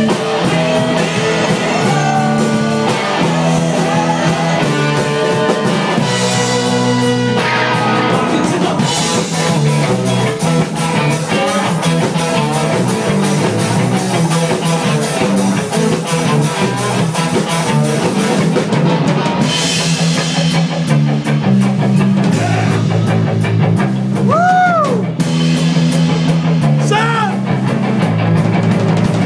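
Live rock band playing loudly: a drum kit with cymbals drives under electric guitar and a low line stepping between notes. Twice near the end a note bends up and back down.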